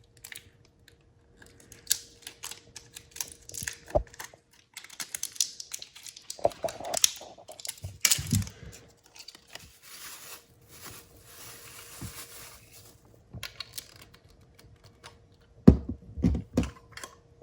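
A small bike headlight and its batteries being unpacked by hand: plastic packaging rustling and tearing, with scattered small clicks and taps. There are a few heavier knocks near the end.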